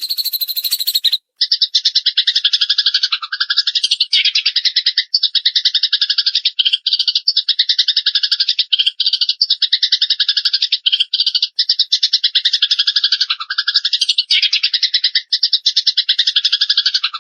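Recorded songbird song for training cage birds: a very fast, buzzy rattling trill repeated in long phrases with brief gaps, starting about a second in after a short crackly burst.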